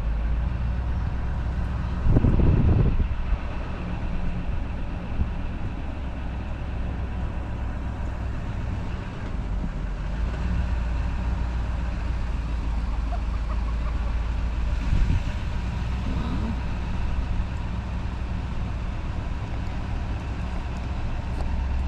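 A truck moving slowly, with a steady low engine and road rumble and a brief louder rumble about two seconds in.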